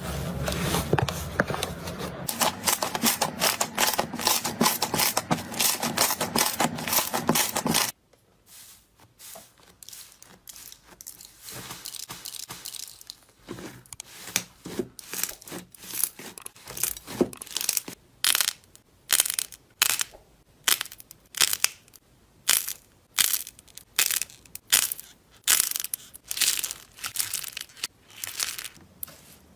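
Slime being squeezed and worked by hand, crackling and crunching. Dense, continuous crackling for about eight seconds, then an abrupt change to separate crunchy squeezes that settle into a rhythm of one or two a second.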